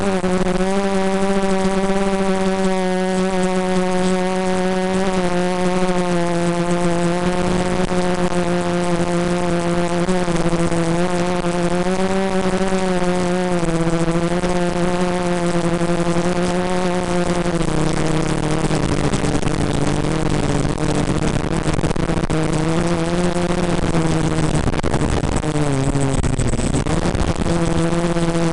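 The brushless motors and propellers of a mini-quadcopter FPV drone make a steady, loud buzz whose pitch wavers with the throttle. Later it turns rougher, and near the end the pitch dips and then climbs again.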